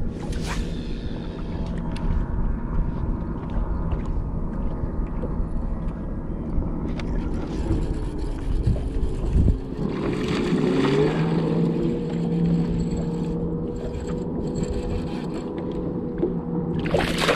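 Bow-mounted electric trolling motor humming steadily, its pitch shifting and rising about ten seconds in as the speed changes. Brief rushes of noise come just after the start and again near the end.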